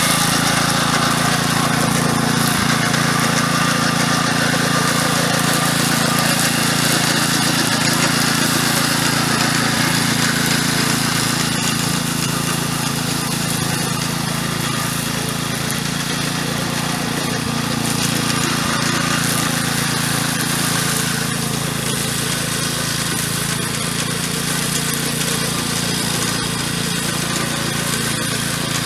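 VARI DSK-316.1PSVN walk-behind tractor with a Samson-56 drum mower running steadily as it cuts tall grass, with a continuous engine hum and the whirr of the spinning cutter drum. It grows slightly fainter as the mower moves away.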